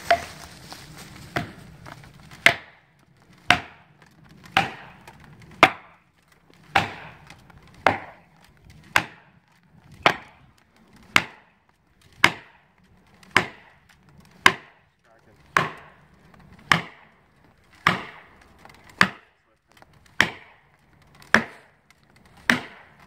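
A hammer driving felling wedges into the cut of a large poplar, about one sharp blow a second, some twenty in all: wedging the back cut to tip the tree over.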